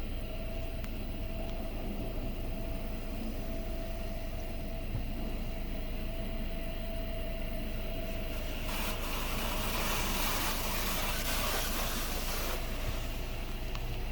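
Inside a car in a touchless rail-track car wash: a steady low hum of the machinery, then about nine seconds in a loud hiss of high-pressure spray hitting the car for about four seconds before it drops away.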